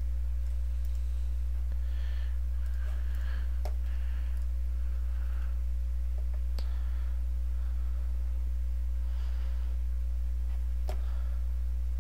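Steady low electrical hum with a ladder of overtones, typical of mains hum on a recording. A few faint sharp clicks come through it.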